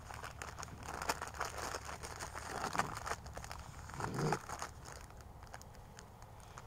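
Irregular crackling and crunching, densest between about one and three seconds in, with a brief low-pitched sound about four seconds in.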